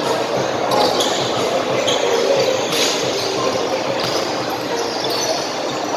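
Basketball bouncing on a hard court during play, over a steady hubbub of spectators in a large echoing hall.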